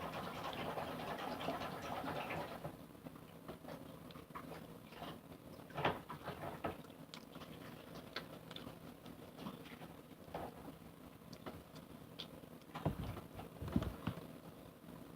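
Faint scattered clicks and scrapes of a spoon while eating honeycomb, with denser rustling in the first couple of seconds and a few louder knocks about six seconds in and again near the end.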